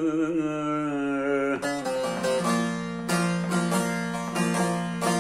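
A man's wavering sung note fades out about a second and a half in. A bağlama (Turkish long-necked saz) then plays an instrumental phrase of quick plucked strokes over a steady low note.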